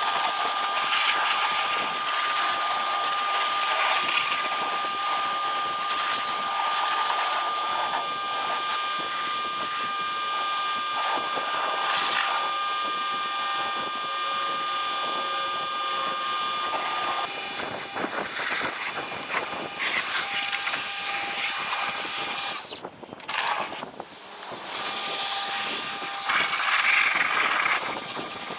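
Ryobi 1600 PSI electric pressure washer running, a steady motor whine under the hiss of the water jet spraying down a car's body. The spray breaks off twice briefly near the end.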